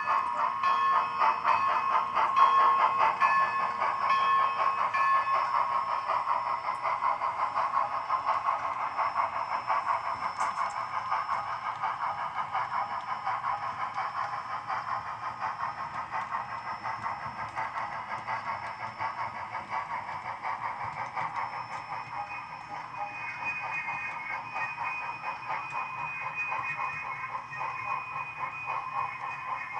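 SoundTraxx Tsunami sound decoder in an HO scale LIRR G-5 4-6-0 steam locomotive model, playing a fast, even run of steam exhaust chuffs through the model's small speaker as it runs, the chuffs timed by a cam on a driver wheel. The sound slowly grows quieter.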